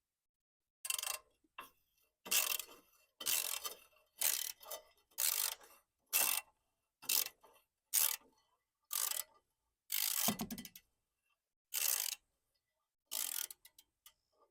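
Ratchet socket wrench on an extension being swung back and forth, about a dozen short bursts of clicking roughly one a second, as a muffler bolt is backed out of a lawn mower.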